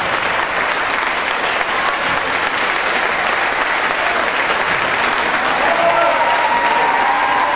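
Spectators clapping and cheering in a steady din, with voices shouting over it.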